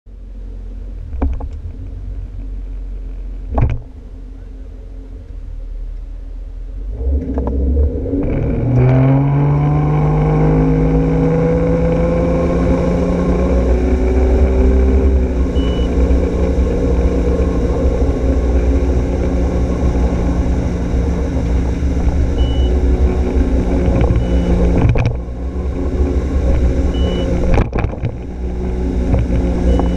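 Ski boat engine idling with a low rumble, with a couple of knocks in the first few seconds. About seven seconds in the throttle opens and the engine note rises for several seconds as the boat pulls the skier out of the water, then it runs steadily at towing speed with water rushing past.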